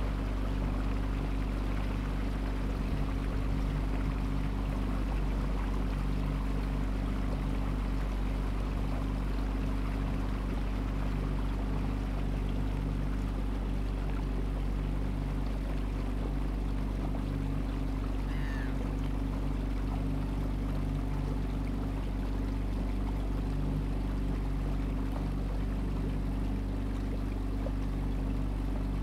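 Boat engine running steadily at constant speed, a low even hum, with water rushing past the hull.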